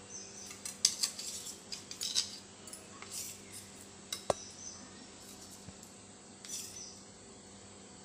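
Metal spoon scraping and clinking against a steel plate as pieces of mango barfi are lifted out, with one sharp ringing clink about four seconds in.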